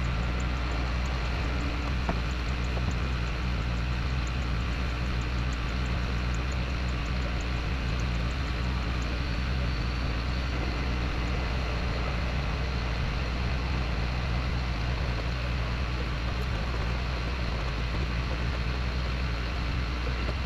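Excavator engine running steadily with a deep, even hum.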